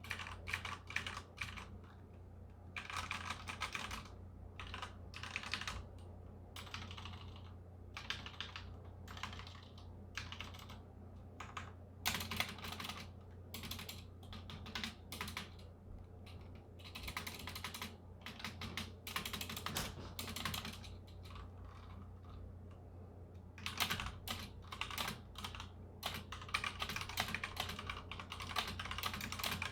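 Typing on a mechanical keyboard with Cherry MX Red linear switches (Ducky One 2 full size): runs of rapid key clacks in bursts of a few seconds with brief pauses between. A faint steady low hum runs underneath.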